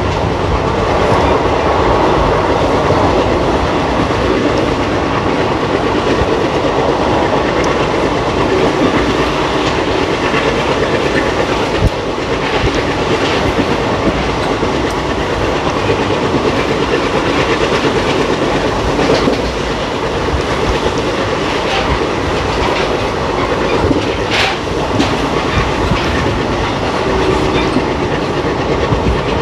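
ICF passenger coach running at speed on the rails: a steady rumble of wheels on track with the clickety-clack of rail joints, and a few sharper knocks scattered through.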